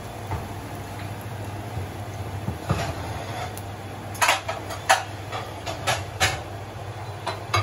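Steady low rumble of a lit gas burner under a wok of kangkong cooking, then from about four seconds in a half-dozen sharp clinks and knocks of metal kitchenware.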